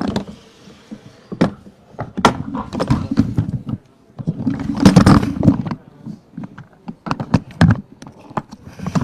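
Microphone handling noise: repeated knocks and thumps with heavier rubbing stretches, the loudest about five seconds in.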